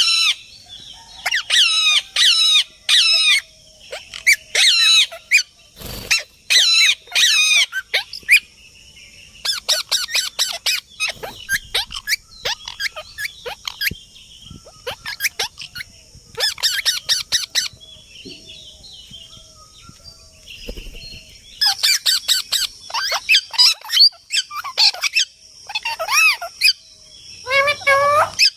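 Parrots calling in repeated bursts of rapid, warbling chatter and squawks, with short pauses between bursts and a steady high hiss underneath.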